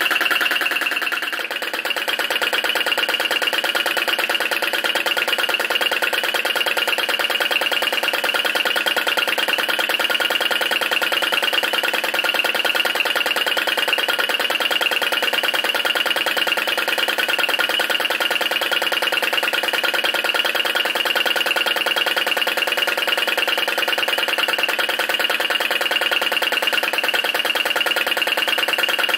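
Flame licker vacuum engine running steadily at speed with a fast, even clatter. It is working under load, driving a small belt-driven generator that lights an LED.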